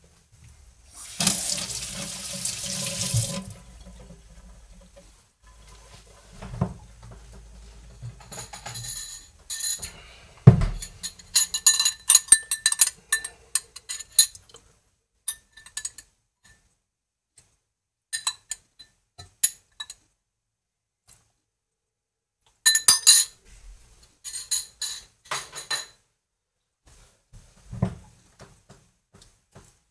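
Liquid poured into a stainless cocktail shaker for about two seconds, followed by scattered clinks and knocks of metal and glass as the shaker is handled, with busy runs of clinks twice.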